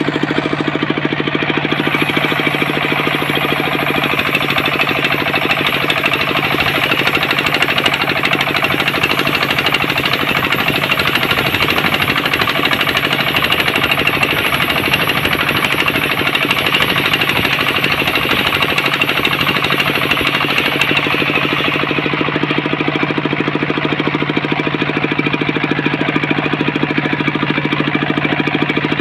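Homemade engine-driven circular saw running steadily with a fast, rattling engine beat. A high whine joins about two seconds in and stops about twenty seconds in, fitting the blade ripping along a coconut palm log.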